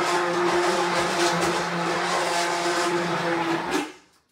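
Handheld immersion blender running steadily with a constant motor whine, pureeing boiled apples into applesauce, then switched off near the end.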